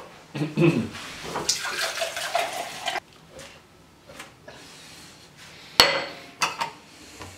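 Liquid pouring and sloshing in glassware for a second or two, then glass vessels knocking and clinking as they are set down on the countertop: two sharp knocks near the end.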